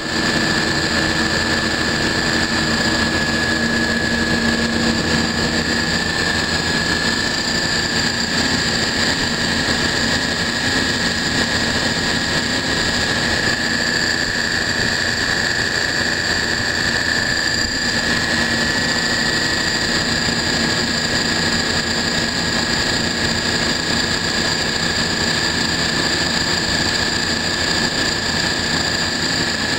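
Copeland three-phase semi-hermetic refrigeration compressors and their condenser fans running together under load: a steady mechanical hum with a high-pitched whine held over it, unchanging throughout.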